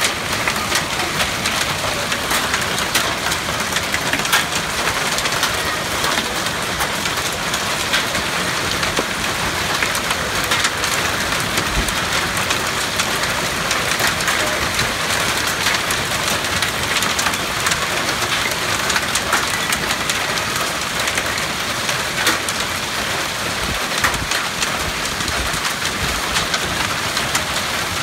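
Hail pelting down hard with rain: a steady hiss dotted with many sharp ticks of hailstones striking hard surfaces.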